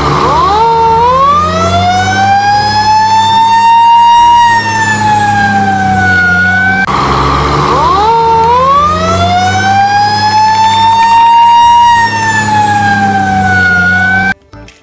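Fire engine siren wailing with a slow rise and fall, twice, over a steady low rumble. It cuts off suddenly just before the end.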